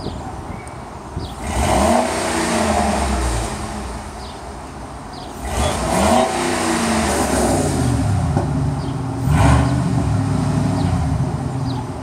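2009 Ford F-150's 5.4-litre three-valve V8, exhaust fitted with an electric cutout, revved three times about four seconds apart, each rev falling back to idle.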